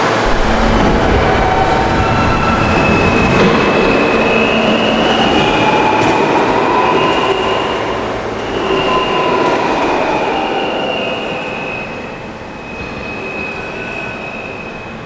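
New York City subway train pulling out of the station: dense wheel and track rumble with wavering high wheel squeal and a whine that rises and falls midway, the whole sound fading in the last few seconds as the train moves away.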